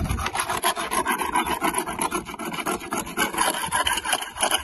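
Barnacles and oyster shell being scraped off a panga's hull by hand: rapid, rough scraping strokes over the hull surface.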